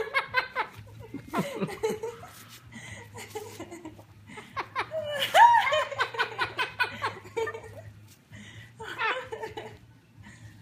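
Yellow-collared macaw mimicking human laughter in several short bouts, the longest and loudest about halfway through.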